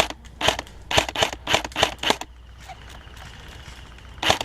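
Airsoft rifle firing single shots in quick succession, about eight sharp cracks in the first two seconds, then a pause and one or two more near the end.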